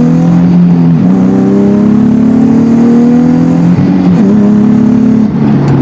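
Nissan 370Z's V6 engine accelerating hard, its pitch climbing steadily through each gear, with the revs dropping at quick upshifts about a second in and again about four seconds in.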